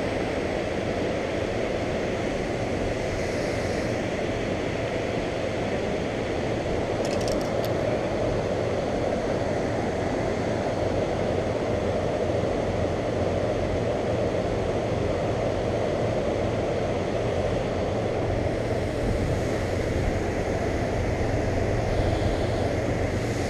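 Steady rush of river water pouring over a low dam and running over rocks, an even noise that holds at one level throughout.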